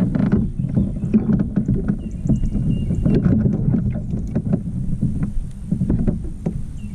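Busy handling noise on a fishing kayak, many knocks and thumps against the hull, while a small spotted bass is reeled in and landed.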